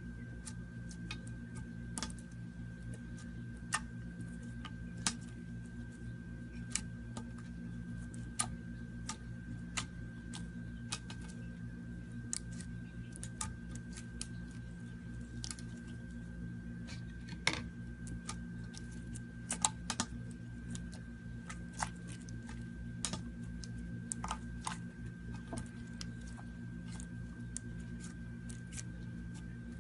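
Slime being played with by hand, giving irregular sharp clicks and small pops, several a second at times, over a steady low hum and a faint steady high whine.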